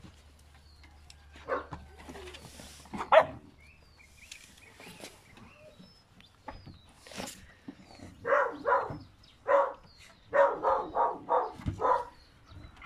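Dog barking: two single barks in the first few seconds, the second the loudest, then a quick run of about nine barks from about eight seconds in. Birds chirp faintly.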